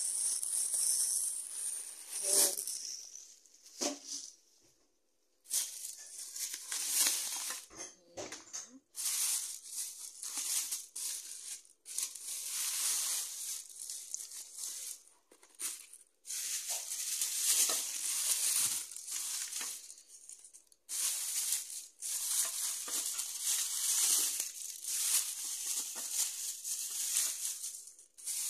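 Thin plastic shopping bags rustling and crinkling as groceries are handled. The sound comes in irregular bursts of a second or several, broken by short pauses, and goes almost silent for about a second around five seconds in.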